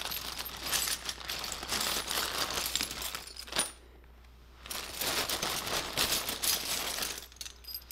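Loose zinc-plated nuts, bolts and small steel parts clinking and rattling against each other as a hand rummages in a plastic bag of hardware, with the bag rustling. The clinking stops for about a second a little before halfway, then starts again and dies away shortly before the end.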